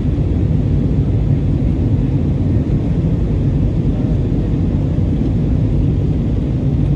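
Steady low rumble of an Airbus A321 in flight, heard inside the passenger cabin: engine and airflow noise, even throughout.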